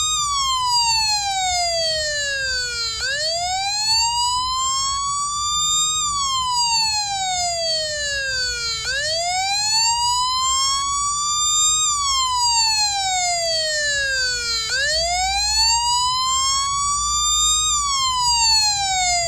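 Police siren on a slow wail: one harsh, many-harmonic tone that falls steadily for about three seconds, then rises for about three, repeating about every six seconds.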